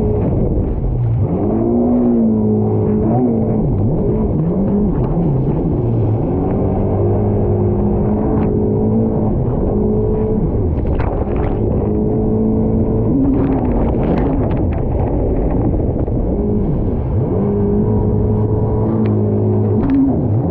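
Yamaha VXR WaveRunner's 1.8-litre four-cylinder four-stroke engine running hard. Its pitch dips and climbs again several times as the rider carves turns. Short splashes of water come now and then.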